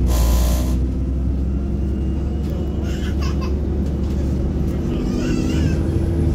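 Double-decker bus engine and drivetrain rumbling steadily, heard from inside the bus while it drives. A short hiss comes right at the start, and brief high, wavering squeaks come about halfway through and again near the end.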